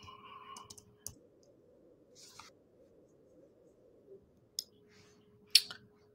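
A handful of sparse, sharp clicks in a quiet room, the clearest about a second in and twice near the end, over a faint steady hum.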